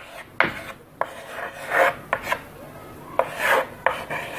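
Chalk scraping on a blackboard in short, irregular strokes, with a few sharp taps, as a word is written by hand.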